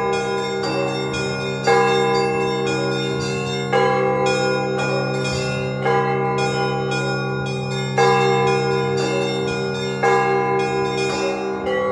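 Russian Orthodox church bells rung by hand in a full peal calling to the Sunday service. A heavy bell is struck about every two seconds over a quick, steady pattern of smaller bells. A deep low hum underneath stops near the end.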